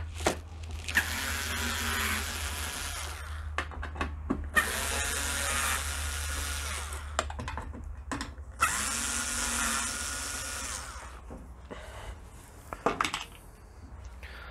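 Cordless electric screwdriver with a Torx T15 bit backing out the dishwasher's front-panel screws. It runs in three bursts of about two seconds each, its pitch bending as the load changes, with short clicks and taps between the bursts.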